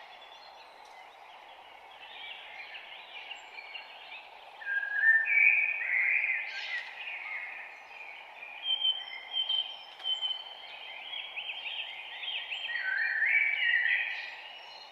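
Several songbirds singing and chirping in overlapping short phrases and trills over a steady faint background hiss, with louder bursts of song around the middle and near the end.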